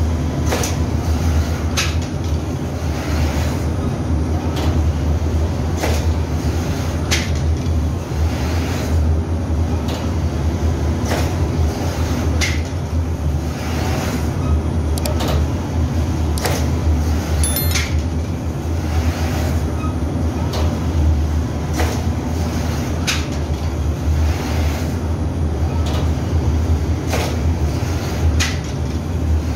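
Automatic flatbread-making machine running: a steady low motor hum under a sharp knock about once a second from its dough-cutting head.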